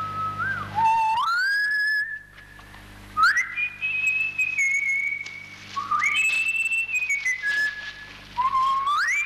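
A whistled tune in repeated phrases: each one opens with a quick upward slide and then holds a high note before stepping down. A steady low hum runs beneath it.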